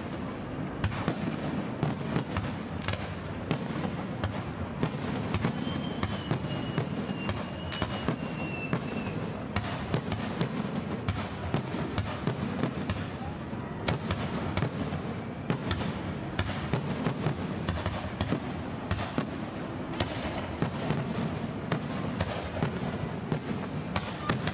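Fireworks display going off: a dense, irregular run of bangs over continuous crackling, with a faint whistle a few seconds in.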